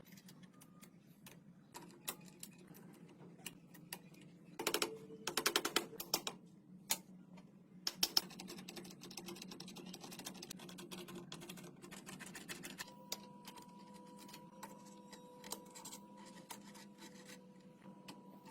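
Scattered clicks and taps of hand tools being worked, with a quick run of rapid clicks about five seconds in, over a steady low hum. A faint steady tone joins about two-thirds of the way through.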